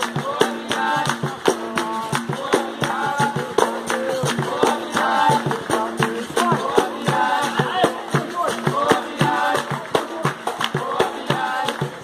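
Capoeira roda music: a berimbau struck with its stick in a quick steady rhythm, with the caxixi rattle shaken in the same hand, over group singing and hand clapping.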